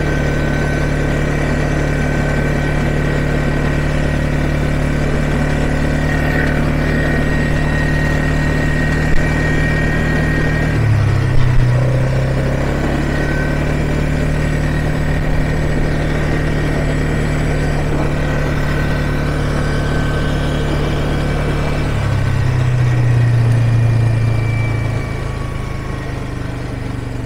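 ATV engine running steadily under way, its pitch shifting about eleven seconds in and again a little after twenty seconds, where it swells louder for a few seconds before easing off. A few short knocks come in the first half.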